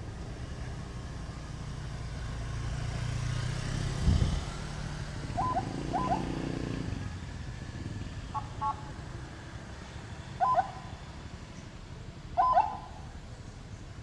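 A large rear-engined Scania K360ib coach passing with a low engine rumble that builds to a peak about four seconds in and then fades. It is followed by several short high-pitched toots spaced a second or two apart.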